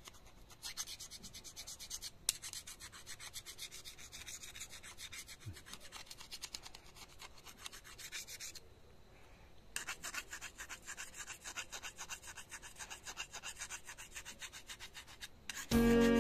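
A steel hand file rasping rapidly back and forth over the rusty blade of a pair of secateurs, scraping the rust off, with a pause of about a second near the middle.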